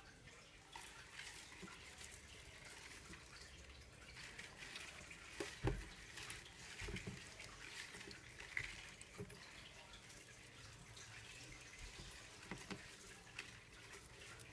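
Faint water sloshing, dripping and small splashes as a pine's root ball of moss, potting mix and perlite is dunked and worked by hand in a plastic bucket of water. A single dull knock about five and a half seconds in is the loudest sound.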